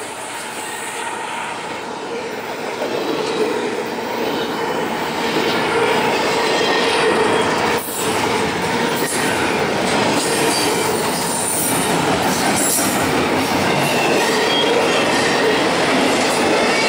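Double-stack intermodal well cars of a fast freight train rolling past at speed: a steady rumble and rattle of steel wheels on rail, growing louder over the first few seconds, with a faint steady wheel squeal running through it.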